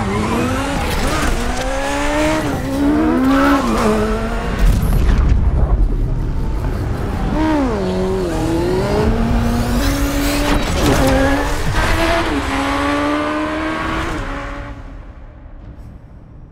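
Race car's motorcycle engine revving hard on track. Its pitch climbs and drops again and again through gear changes, and the sound fades away near the end.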